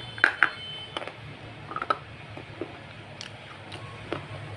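Close-up eating sounds: a person biting and chewing food, with several sharp wet mouth smacks and clicks at irregular intervals, the loudest just after the start.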